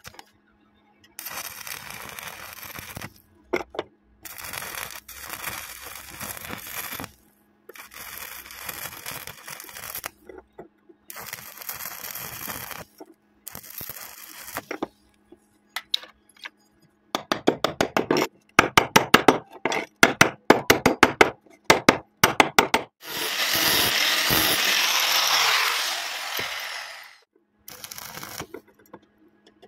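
Stick-welding arc on steel rebar crackling and hissing in several runs of a few seconds each, with short gaps between. Past the middle comes a string of rapid sharp cracks, then a longer, louder steady hiss.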